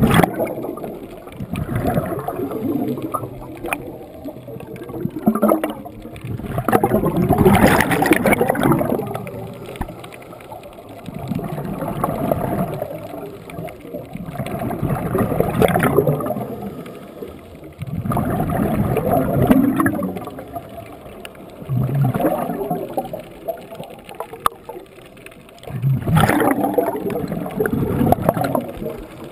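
Scuba diver breathing underwater through a regulator, with a burst of gurgling exhaled bubbles roughly every three to four seconds.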